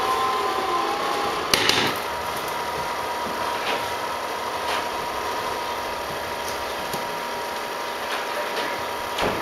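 Upright vacuum cleaner motor running steadily with a thin whine. A sharp thud comes about one and a half seconds in, and another thump comes near the end.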